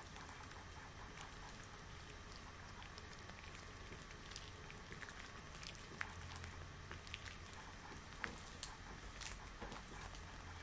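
Extra-long latex gloves being handled: faint rubbing and crackling of the latex, with scattered small ticks and a few sharper snaps after about six seconds.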